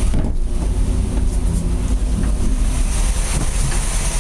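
Twin 270 marine gasoline V8 inboard engines, 350-based, idling steadily in an open engine compartment, with a deep, even drone.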